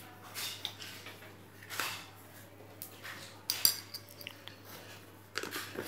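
A few light, irregularly spaced clinks of metal kitchenware, like a spoon knocking against a pan or utensil, over a quiet background.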